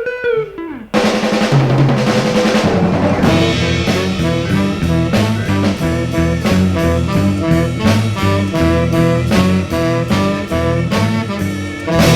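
1960s beat band playing an instrumental passage: a chord dies away, then about a second in the drum kit comes in hard with rapid snare and bass-drum hits over a stepping bass guitar line.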